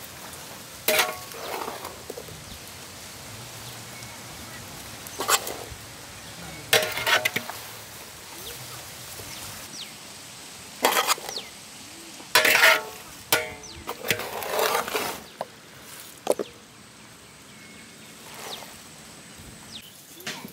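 Steel ladle and large aluminium cooking pots clanking and scraping in scattered, uneven knocks as wet chopped okra is scooped.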